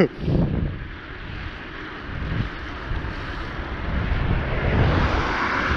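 Wind rushing over a cyclist's camera microphone, with road rumble underneath, while riding; the rush swells over the last couple of seconds.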